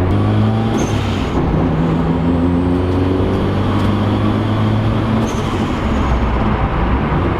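Turbocharged car engine pulling under boost, heard from inside the cabin, its note slowly climbing and shifting over steady road noise.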